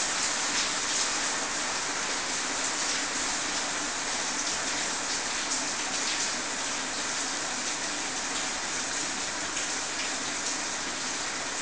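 Steady rain-like hiss with faint scattered ticks.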